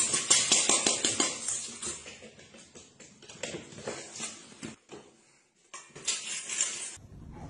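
Stainless steel food bowl of dry kibble clattering on a tiled floor: a run of clicks and taps, loudest at the start and fading away, with another flurry of taps near the end.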